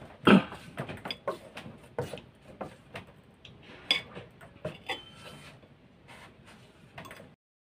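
Fork and knife scraping and clinking against a ceramic plate while flaking canned sardines: irregular taps and short scrapes, the loudest just after the start. The sound stops abruptly near the end.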